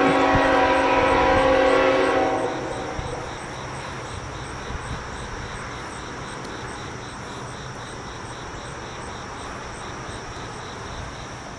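Freight locomotive's multi-chime air horn sounding a chord that ends about two and a half seconds in, followed by the steady rumble of the freight train rolling past. A faint high ticking repeats about two to three times a second throughout.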